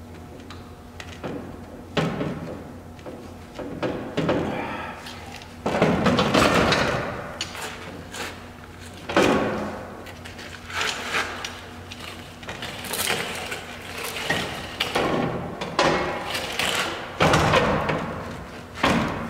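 Irregular knocks, clunks and scraping from metal truck-bumper parts and hardware being handled and fitted by hand at the back of a pickup, over a steady low hum.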